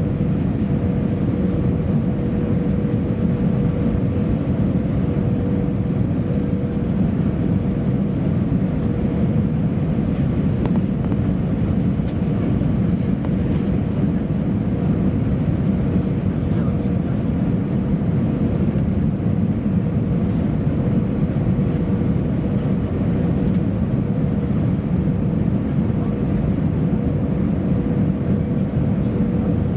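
Airbus A319-111 cabin noise during the descent to land: an even low rumble of engines and airflow past the wing with flaps out, with a thin steady hum above it, heard from a window seat over the wing.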